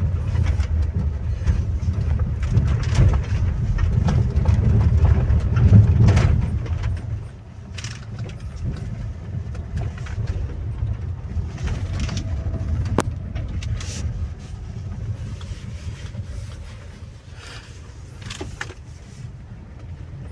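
Hyundai Creta driving over a rough road, heard from inside the cabin: a heavy low rumble from the tyres and suspension that eases off about seven seconds in, with scattered short clicks and knocks from the front suspension. The car is being tested for a squeak from the front left suspension, which the mechanic later suspects is a worn shock absorber.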